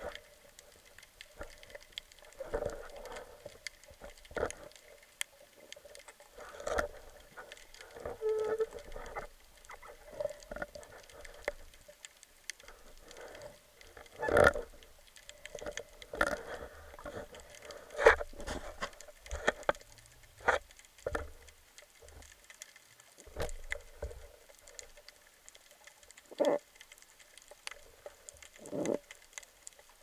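Underwater sound picked up by a camera on a speargun: irregular clicks, knocks and muffled thumps. The loudest come a little before halfway and again a few seconds later.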